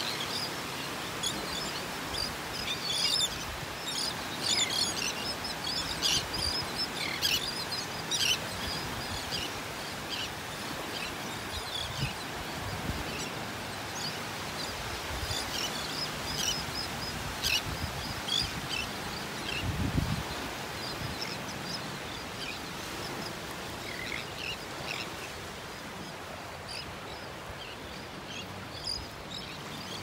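A flock of terns and gulls calling over gentle surf, with short high calls coming thick and fast for the first twenty seconds or so, then thinning out. A single low thump about twenty seconds in.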